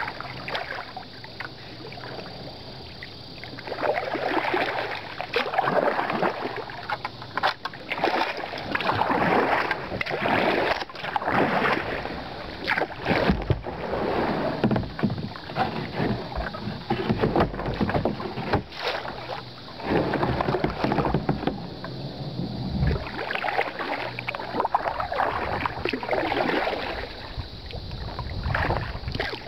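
Kayak paddle strokes splashing and pulling through calm river water, a swish about every second and a half after a quieter start, with a few sharp knocks in between.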